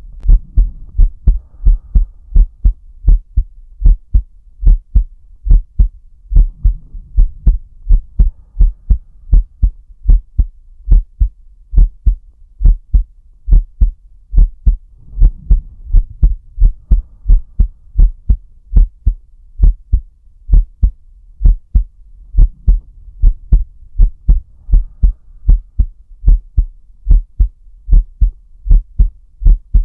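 A person's heartbeat picked up close against the chest: a steady run of evenly spaced, deep thumps. Under it, a soft slow breath swells about every seven or eight seconds.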